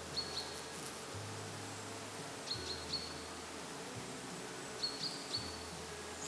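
Bumblebee humming steadily as it forages in gentian flowers, with a bird's short high chirps coming in twos and threes.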